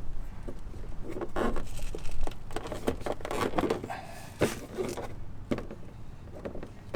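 Irregular clicks, taps and scrapes of hand tools and hardware on the plastic mud flap as its fasteners are tightened.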